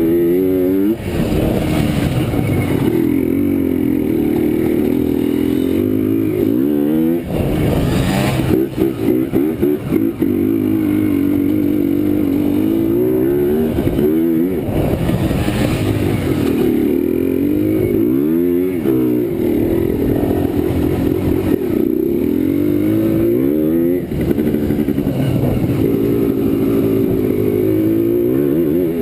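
Yamaha Blaster ATV's single-cylinder two-stroke engine being ridden hard, revving up and down with the throttle and gear changes. Two brief rushes of noise come about a quarter of the way in and about halfway.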